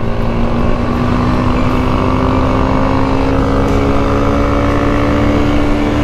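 Motorcycle engine heard from the rider's seat, held at steady high revs and climbing slowly in pitch as the bike accelerates, over a heavy low wind rumble.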